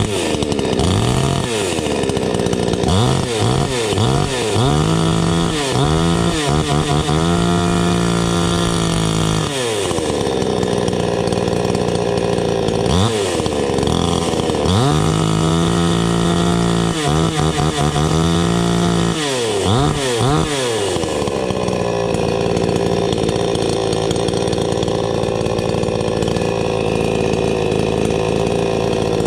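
iBell petrol two-stroke chainsaw revved with its chain running free: a few short throttle blips, then held at high revs for a few seconds, done twice. It then drops back and idles steadily.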